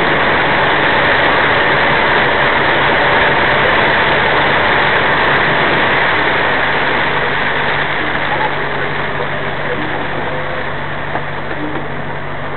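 Heavy storm rain and wind-driven water hammering on a truck cab and windscreen, a loud even hiss over the low steady drone of the truck's engine. The rain noise eases a little in the last few seconds.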